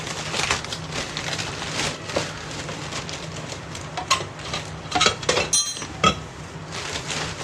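Scattered knocks and clinks of dishes and kitchen utensils being handled, with one brief ringing clink a little after five seconds in. A steady low hum runs underneath.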